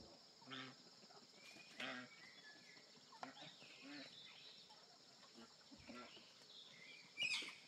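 Quiet farmyard ambience: a steady high drone of insects, with scattered short clucks and calls from chickens and ducks and one sharper, louder bird call near the end.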